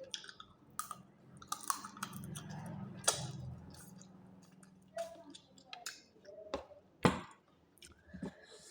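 A person chewing roast chicken close to the microphone, with scattered sharp mouth clicks and smacks and a louder click about seven seconds in.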